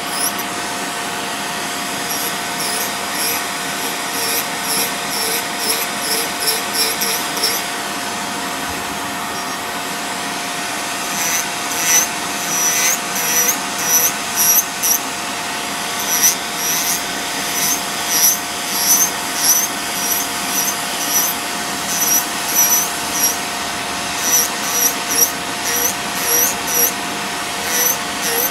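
Electric podiatry nail drill running steadily with a thin whine while its burr grinds down a toenail thickened by fungal infection. Short high squeaks come in runs over it, about two a second through the second half.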